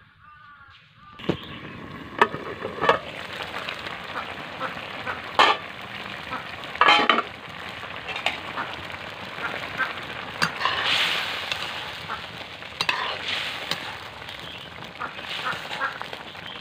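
Fish curry boiling hard in an aluminium kadai over a wood fire: a steady sizzling, bubbling hiss with frequent sharp pops and clicks, starting about a second in.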